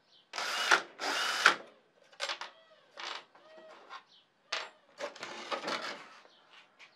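DeWalt cordless drill boring a hole through a G10 composite binding plate in two short runs of about half a second each. These are followed by several shorter, quieter bursts of tool handling and clatter.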